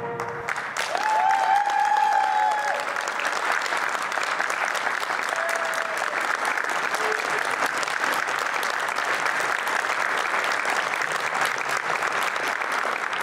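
Audience applauding steadily, starting right as the music ends.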